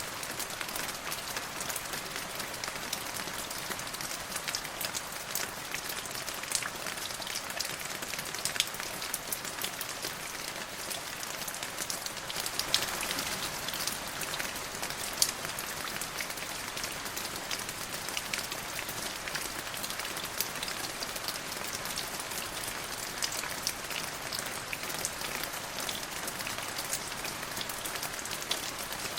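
Steady rain falling on a hard surface: an even hiss with many individual drops ticking sharply, a few louder hits scattered through, and a brief heavier spell about halfway through.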